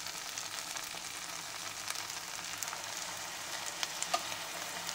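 Beef and vegetable pulao sizzling steadily in the pot as the added beef stock cooks into the rice, with a few light clicks of a spatula about four seconds in.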